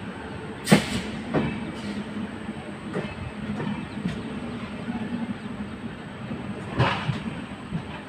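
Express train coaches rolling along the track: a steady rumble with sharp metallic clanks as the wheels pass over rail joints, the loudest about a second in and again near the end.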